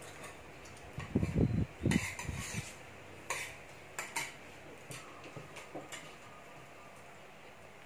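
Metal cutlery clinking and scraping against plates and dishes at the table, in scattered sharp clicks, with a few dull low thuds about a second in.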